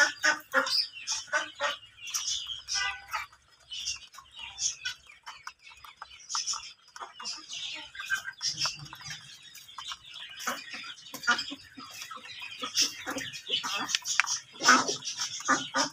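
Domestic fowl clucking and chirping in many short, irregular calls, busier near the start and again near the end.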